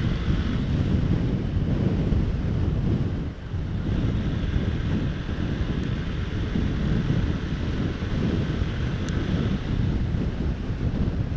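Wind buffeting the microphone of an SJ6 Legend action camera on a moving motorcycle, a steady low rumble of rushing air and road noise that drops briefly about three seconds in.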